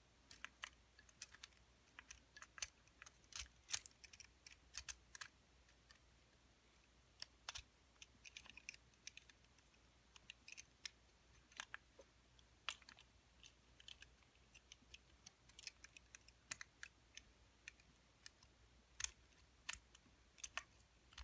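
Faint, irregular small clicks and light scrapes of a 2-in-1 lever-lock pick working the levers inside an all-steel lever padlock while it is held under tension.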